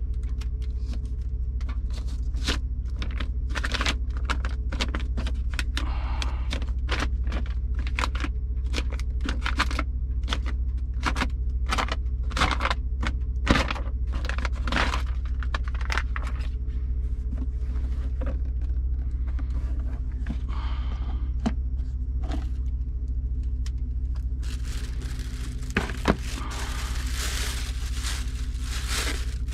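Packaging of a portable camping gas stove being handled and opened: repeated scrapes, taps and clicks of the cardboard box and the plastic carrying case, then plastic wrapping rustling near the end, with two sharp knocks. A steady low hum runs underneath.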